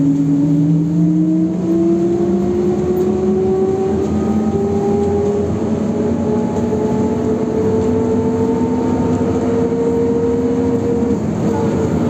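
ZiU-682B trolleybus's electric traction motor whining under way, its pitch climbing slowly as the trolleybus gathers speed and easing off slightly near the end, over steady road noise inside the cabin.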